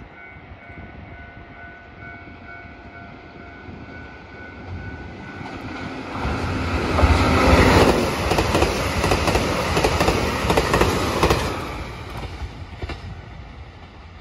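JR Hokkaido KiHa 283 series diesel limited express passing through the station at speed without stopping: the rumble and clatter of its wheels build from about five seconds in, are loudest around seven to eight seconds, and fade away by about twelve seconds.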